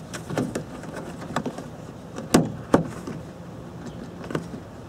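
Felt trunk-lid carpet liner being peeled back by hand, rustling and scraping, with small clicks and two sharper snaps about halfway through.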